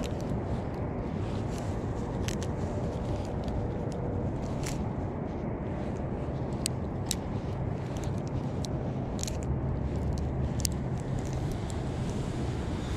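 Scattered sharp clicks and ticks from hands working a spinning reel, over a steady low rumble.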